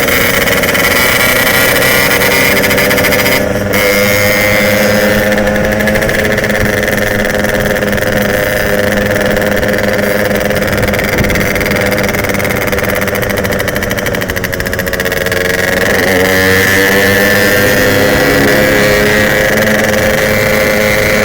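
Yamaha RX-King's two-stroke single-cylinder engine running on the move, its note holding fairly steady with gentle rises and falls. It eases off briefly about three and a half seconds in, softens again around fifteen seconds in, then picks up.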